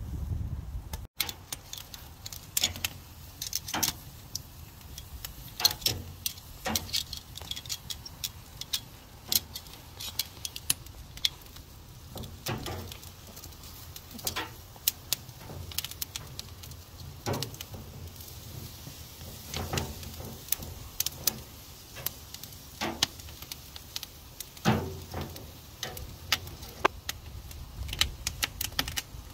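Wood embers crackling and popping under a wire barbecue grate where bell peppers and tomatoes are charring: irregular sharp snaps over a steady low hiss. Metal tongs clink against the grate as the peppers are turned.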